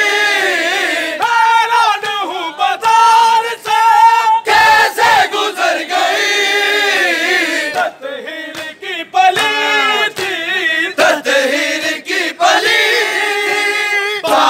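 A group of men chanting a noha, a Shia lament, in loud chorus: long sung phrases broken by short gaps, over a crowd, with scattered slaps of chest-beating (matam).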